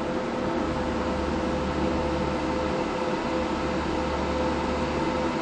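Steady machine hum and hiss with a constant mid-pitched tone, unchanging throughout.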